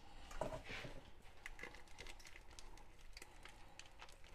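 Faint handling noises of ground pork being put into a mixing bowl: scattered light clicks and taps, with a brief louder rustle about half a second in.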